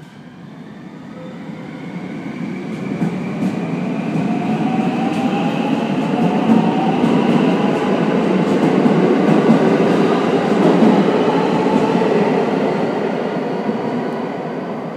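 JR West 521 series electric multiple unit departing and accelerating past on the platform track. Its traction motors whine, with several tones rising in pitch, over the rumble and clatter of the wheels. The sound swells to its loudest as the cars go by and fades near the end.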